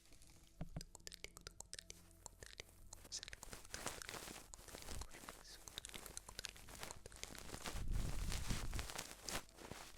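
Close-up ASMR crinkling and crunching: sparse sharp clicks at first, turning into a dense crackle about three seconds in that grows loudest, with a low rumble, near the end.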